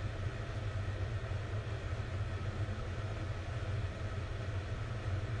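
Steady low rumble with a faint even hiss: kitchen background noise while a pot cooks on a gas stove.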